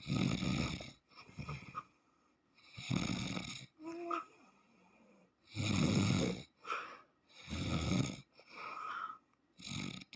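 A man snoring in his sleep: loud rasping snores about every two to three seconds, with softer breaths in between. A short, higher squeak that rises in pitch comes about four seconds in.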